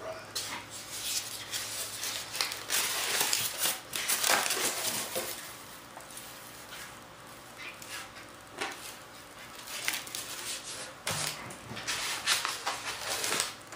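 Rustling and rubbing as a fiberglass-covered model aircraft panel is picked up, handled and turned over on a workbench, in irregular bursts.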